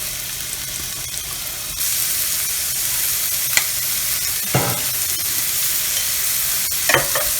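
Sliced onions and curry leaves sizzling in hot oil in a frying pan as they are stirred, with a few light knocks from the stirring; the sizzle steps up louder about two seconds in.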